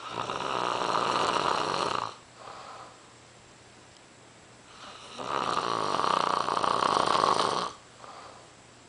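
A person snoring: two long, rasping snores about five seconds apart, each lasting about two seconds and followed by a brief softer breath.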